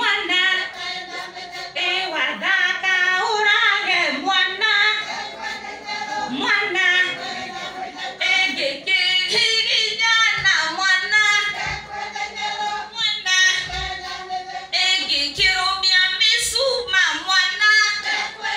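A group of women singing together, several voices wavering and overlapping in pitch throughout.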